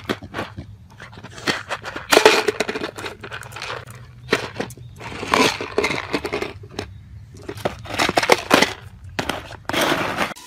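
A small plastic tub scraping and clattering over asphalt in irregular bursts as a dog pushes it along.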